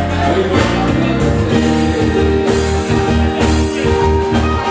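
Amplified music with a strong bass, and a man singing into a handheld microphone over it.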